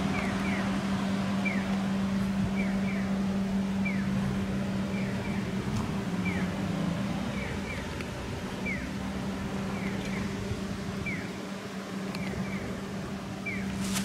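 Steady engine hum of street traffic, with short high electronic chirps repeating evenly through it, singly and in pairs, from a pedestrian crossing signal's bird-call tone.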